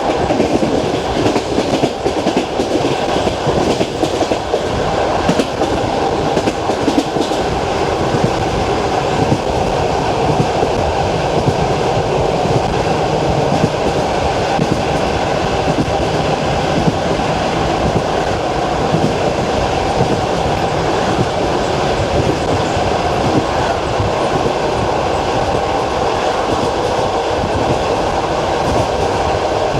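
Passenger train running on jointed rail, heard from inside a carriage: steady rumble with the rhythmic clickety-clack of the wheels striking the rail joints.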